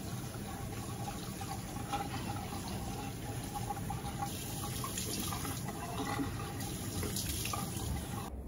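Water running steadily from a tap into a sink, stopping abruptly near the end.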